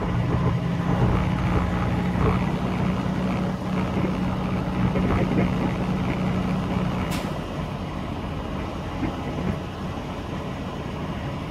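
Semi-truck's diesel engine and running noise heard from inside the cab as it rolls slowly at low speed, a steady low drone that eases off and grows quieter about two-thirds of the way through. A brief hiss comes about seven seconds in.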